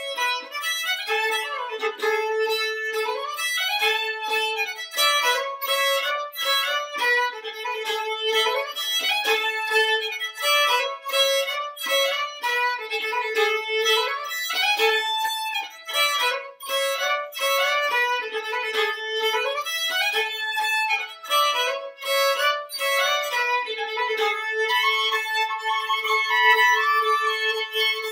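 Solo fiddle playing a folk tune, bowed, with a steady low note held under the melody much of the time.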